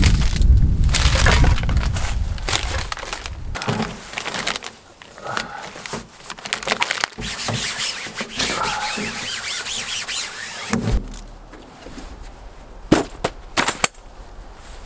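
Clearing up a camp table: a plastic rubbish bag crackling and rustling as things are handled and the top is wiped, under wind on the microphone at first. Near the end the table's metal frame is folded, with a few sharp clacks.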